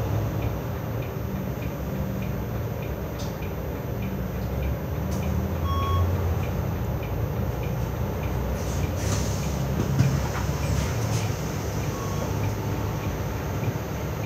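City bus running and driving along, heard from inside the cabin at the front: a steady low engine and road rumble with a regular light ticking. A short hiss comes about nine seconds in, followed by a small knock.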